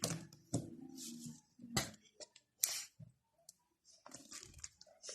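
Scattered short clicks, taps and rustles of small items and packaging being handled, with two sharper knocks near the middle.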